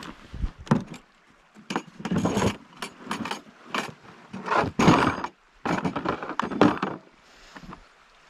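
Hard plastic power-tool case being unlatched and opened, and a cordless drill lifted out of it: a run of plastic latch clicks, knocks and rattling handling, dying down near the end.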